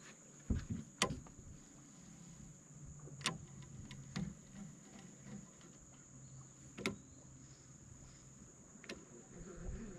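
Steady high-pitched insect chorus, crickets by their sound, with a handful of sharp clicks and a low thump scattered through it; the loudest clicks come about a second in.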